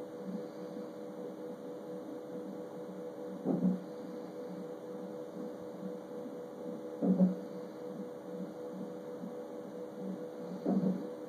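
A person hiccuping: three short, sharp hiccups evenly spaced about three and a half seconds apart, over a steady electrical hum.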